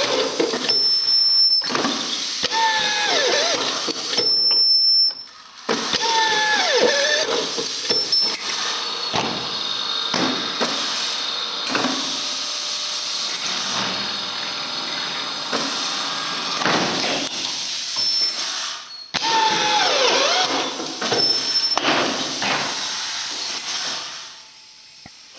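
Schirmer Powasert through-feed screwing machine driving screws through a PVC window profile into its steel reinforcement. The screwdriver runs over and over, several runs with a whine that falls in pitch, separated by brief pauses.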